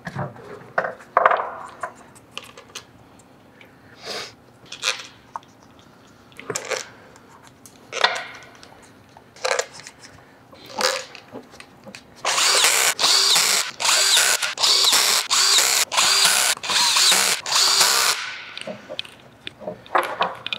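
Cordless drill/driver running engine bolts in a string of about seven short trigger bursts, its clutch set to 7 so it stops short of final torque. Before the bursts come scattered clicks and knocks of parts and bolts being handled.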